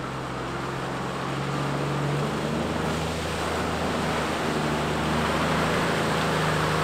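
Toyota LandCruiser 80 Series engine running at a steady low pitch as the truck wades through a creek crossing, with water splashing and surging around its wheels. Engine and splashing grow steadily louder as it approaches.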